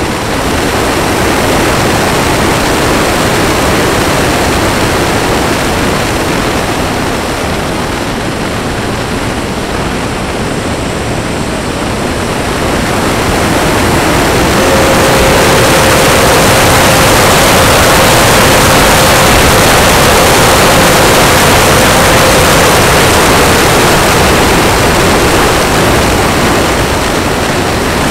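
Loud rushing airflow noise on the onboard camera of a Freewing Mirage 2000 electric ducted-fan model jet in flight, getting louder about 13 seconds in. A faint steady tone sits under the rush in the middle.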